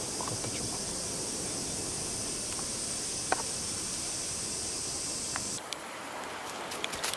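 Cicadas droning steadily in the trees, a high-pitched even buzz that cuts off suddenly about five and a half seconds in. A single sharp click sounds about three seconds in.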